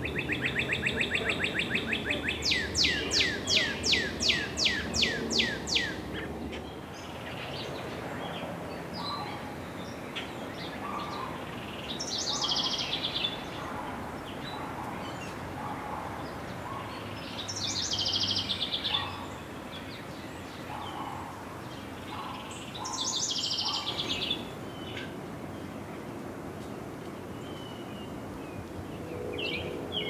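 Backyard songbirds singing. First comes a loud run of quick whistled notes that each slide down in pitch, about four a second, for a few seconds. After that a shorter song phrase is repeated three times, about five seconds apart, over soft scattered chirps.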